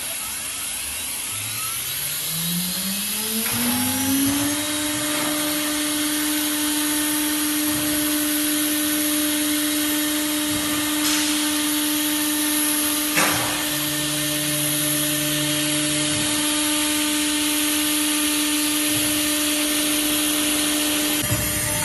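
CNC router spindle spinning up, its whine rising in pitch over about three seconds, then running steady at speed over a constant hiss. A sharp click comes about halfway through, followed briefly by a lower hum.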